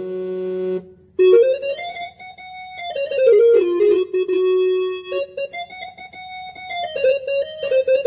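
Casio CTK-2550 electronic keyboard playing a single-line melody on one of its built-in tones. The notes are held and step up and down, with a brief break about a second in.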